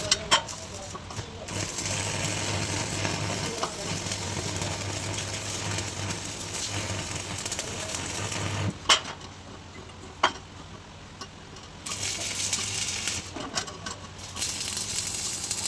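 Electric arc welding sizzling and crackling steadily over a low hum for about nine seconds, then stopping with a sharp knock. A couple more sharp knocks and short bursts of hiss follow.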